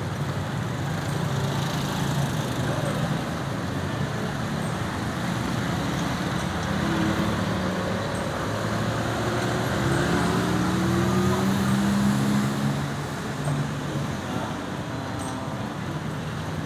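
Road traffic: vehicle engines running and tyres on the road, with a louder vehicle passing about ten to thirteen seconds in. No siren.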